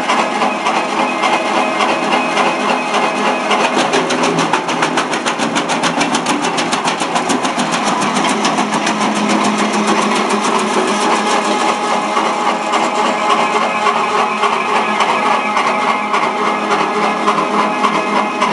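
Electric wood chipper with a 5.5 kW motor running steadily. A fast, even ticking comes in about four seconds in and fades out around twelve seconds.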